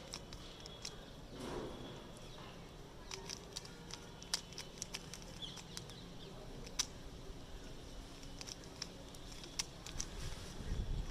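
3x3 puzzle cube being turned by hand during a solve: scattered, irregular sharp plastic clicks of the layers snapping into place.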